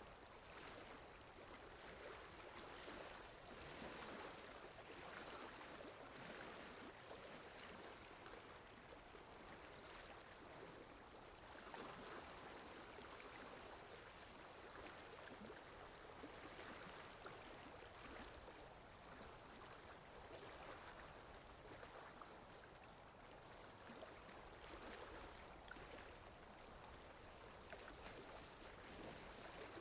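Rain falling steadily: a faint, even hiss of water that swells and eases gently every few seconds.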